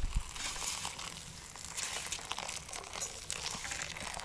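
Just-boiled water pouring from a kettle into a tray of dry instant noodles: a steady splashing hiss with many small ticks through it, after a short low thump at the start.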